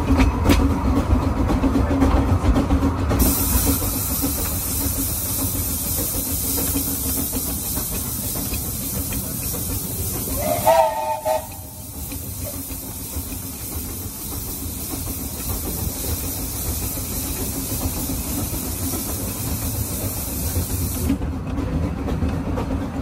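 Narrow-gauge Bagnall 2-4-0T steam locomotive running with a steady rumble, with steam hissing from a few seconds in until shortly before the end. Near the middle, a short whistle blast of about a second, made of several tones.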